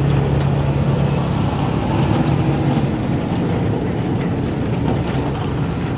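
An engine running steadily: a constant low hum under a wash of noise.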